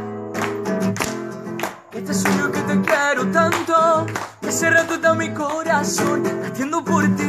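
Acoustic guitar strummed in a steady rhythm, with a man's singing voice coming in about two seconds in and holding notes that waver.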